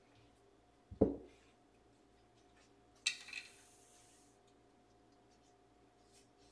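Handling sounds on a felt craps table: a single dull knock about a second in, as the craps puck is set down ON the point, then a brief clack and rattle of chips about three seconds in.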